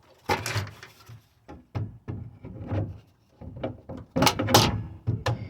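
Swing-out truck-bed toolbox being fitted onto its mounting bracket: a run of knocks and clunks, the loudest two about four seconds in.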